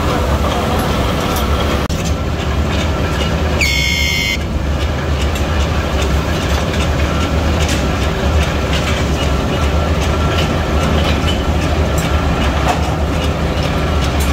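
Heavy forging-shop machinery in a leaf spring factory runs steadily, a loud low hum with scattered clanks. About three and a half seconds in, a high-pitched squeal cuts through for under a second.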